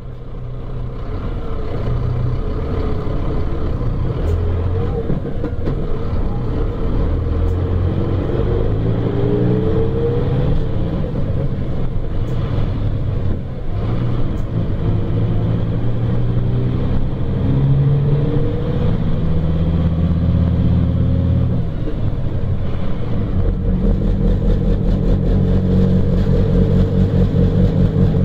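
Coach engine heard from inside the passenger cabin, rising in pitch several times as the bus accelerates. In the last few seconds it runs steadily with an even beat.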